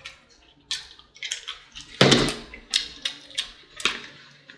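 Macaroni and cheese being spooned from a plastic takeout container onto a plate: a string of short plops and scrapes, the loudest about two seconds in.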